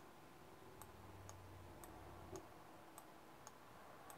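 Faint, sparse clicks, roughly two a second, over near-silent room tone: a computer mouse clicking.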